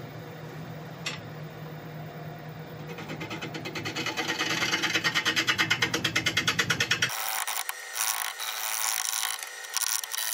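Wood lathe running slowly with a steady motor hum, then a bowl gouge starts cutting the face of a large, hard Scottish elm blank turned outboard. The cut comes as a rapid, even chatter of several hits a second, growing louder as the tool bites into the untrued, slightly bowed blank. About seven seconds in the sound changes suddenly to a rougher, broken cutting noise.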